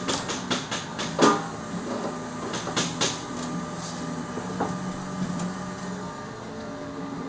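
Sheet-metal combustor can of an Orenda 14 turbojet clinking and knocking against the engine casing as it is fitted into place. The knocks come in clusters, the loudest at about a second in, with more around three seconds.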